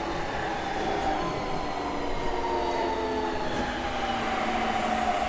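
Siemens VVVF inverter and traction motors of a Keikyu 1000-series train under braking: several whining tones glide slowly downward together as the train decelerates. This changed tone on deceleration is what the uploader flags as an unusual noise.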